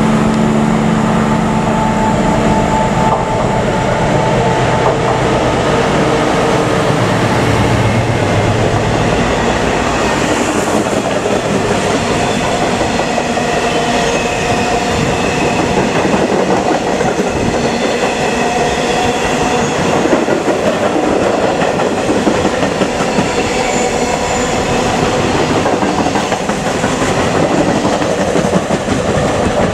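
Freight train of hooded steel-coil wagons rolling past at speed, with a continuous clatter of wheels over the rails. A steady engine drone is heard in the first few seconds.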